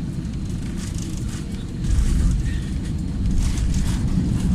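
Airbus A320 cabin noise during landing: a heavy, steady rumble with rattling of cabin fittings, growing louder about two seconds in.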